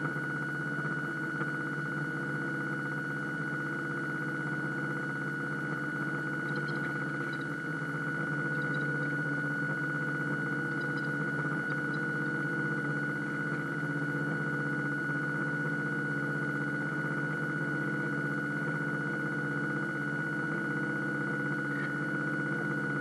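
Steady electric whine and hum of a radio-controlled model boat's drive motor running at constant throttle, picked up through the hull by the onboard camera.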